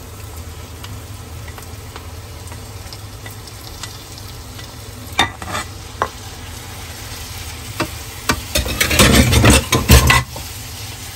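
Chopped tomatoes sizzling in a frying pan of onion and spice masala while a wooden spatula stirs and scrapes them. There are a few short knocks about five seconds in, then a couple of seconds of brisk scraping and clattering near the end, the loudest part.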